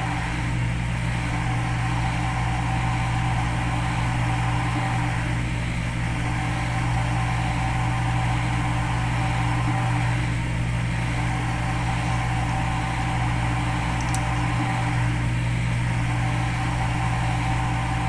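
Steady mechanical hum: a strong low drone with a few steady higher tones, swelling slightly about every five seconds.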